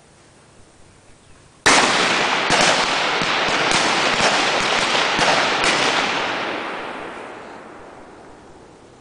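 Several M16/M4 rifles firing 5.56 mm rounds: many shots overlapping, starting suddenly about a second and a half in and going on for about four seconds, with a heavy rolling echo that fades away over the last few seconds.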